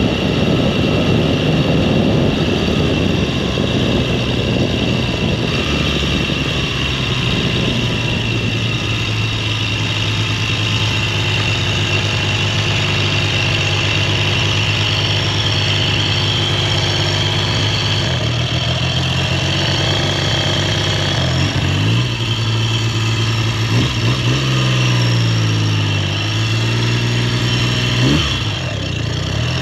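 1969 Triumph Trident's 740 cc air-cooled three-cylinder engine running steadily after a top-end rebuild and tune-up. In the last several seconds it is revved up and back down a few times.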